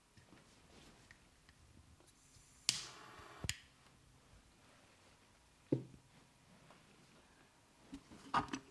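Massage sounds from hands on skin: a sharp slap followed by nearly a second of rubbing, a single knock, then a quick run of clicks near the end.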